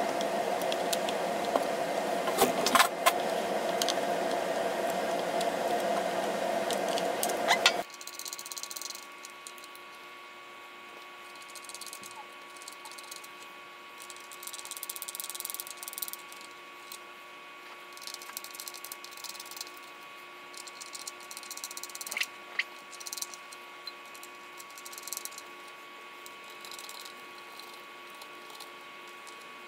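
Small metallic clicks and light rattles of nuts and washers being unscrewed from the potentiometer and switch shafts on a DJ controller's metal top panel. For the first eight seconds a loud steady hum sits under them; it stops abruptly, leaving a quieter hum beneath the scattered clicks and taps.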